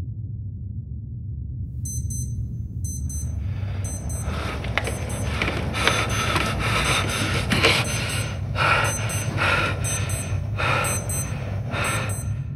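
Electronic alarm beeping in quick pairs of short, high beeps, starting about two seconds in and growing louder and harsher, over a low steady rumble.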